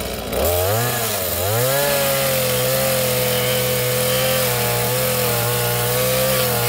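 Small Stihl two-stroke chainsaw revving up about half a second in, dipping briefly, then held at steady high revs as it cuts into a coconut palm trunk.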